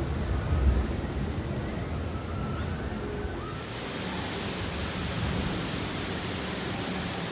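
Steady outdoor noise with a low rumble and a brief louder swell under a second in. A brighter hiss comes in about three and a half seconds in and holds steady.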